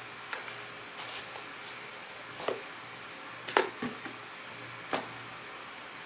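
A handful of short clicks and knocks as small accessories and their packaging are handled, the loudest about two thirds of the way through, over a steady low room hiss.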